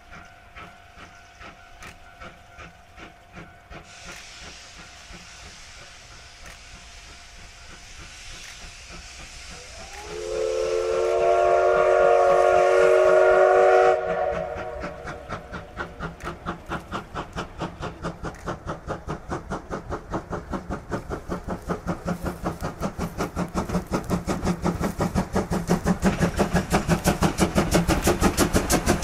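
Class C12 tank steam locomotive C12 66 pulling away from a station: steam hissing, then a steam whistle blast of about four seconds that starts around ten seconds in, followed by steady exhaust chuffs that grow louder.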